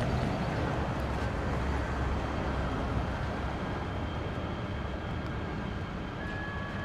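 Steady rumble of a light rail train moving along the line, mixed with road traffic. The sound slowly fades, with faint thin whining tones over it.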